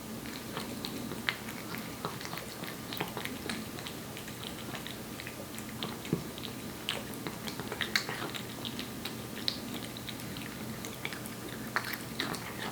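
A Korean shorthair cat eating wet cat food: irregular wet smacking and chewing clicks, several a second, with a few louder smacks.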